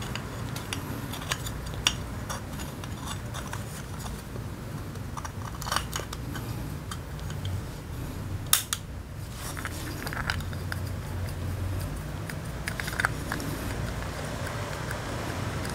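Small metal clicks and clinks as the brush-holder plate, brushes and springs of a Honda Silver Wing 600 starter motor are worked into its end cap by hand, with a sharper click about eight and a half seconds in. A steady low hum runs underneath.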